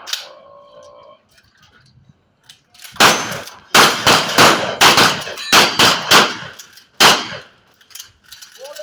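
A rapid string of about eight shotgun shots over roughly four seconds, starting about three seconds in, with steel plate targets clanging as they are hit.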